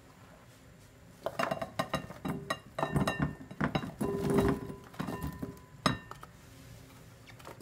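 Raw sweet potato wedges sliding off a plastic cutting board and dropping into a glass bowl, a dense run of knocks and clinks against the glass with the bowl ringing briefly. It starts about a second in, goes on for about five seconds, and ends with one louder knock.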